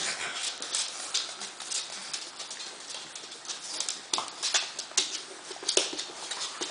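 Puppies' claws clicking and scrabbling on a wooden floor as they wrestle, with irregular sharp clicks and scuffs.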